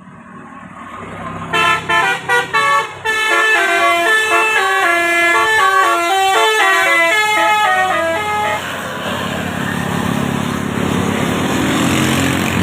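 Indonesian tour bus's multi-trumpet 'telolet' musical air horn, an 18-horn set, playing a tune. A few short blasts come first, then a quick melody of stepped notes for about five seconds, and then a steady rushing noise takes over.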